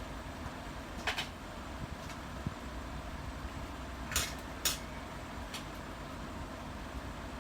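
A few short, light clicks and scrapes of small parts and tools being handled, two close together near the middle, over a steady background hum.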